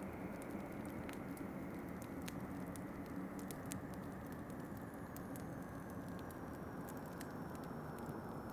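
Wood fire crackling in a fireplace, with scattered sharp pops and ticks, over a steady low rush of winter wind.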